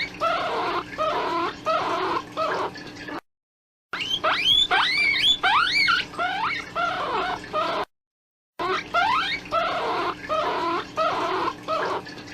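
Recorded rabbit calls of the kind used to lure game: quick series of short calls, many sliding sharply upward in pitch, over a steady low hum. The recording breaks off twice into sudden dead silence and starts again, as a looped call does.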